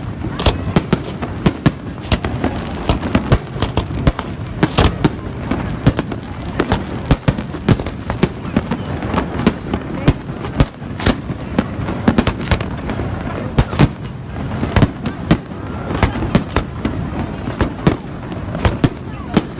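Fireworks bursting in a continuous, irregular barrage, several sharp bangs a second over a constant rumble, with faint crowd voices underneath.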